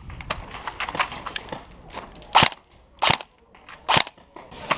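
Airsoft replica firing single shots: three sharp cracks about two-thirds of a second to a second apart, with fainter clicks in between. The shots are test-firing on a shooting range to check the hop-up.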